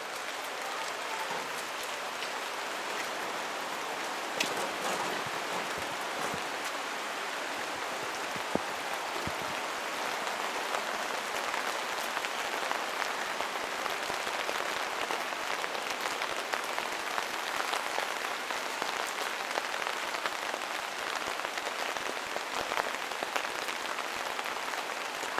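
Steady rain falling in a forest, with many individual drops ticking on nearby surfaces.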